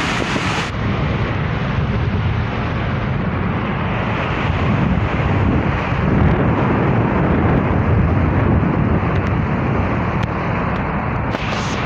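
Steady rumble of road and engine noise from a vehicle driving through a long road tunnel.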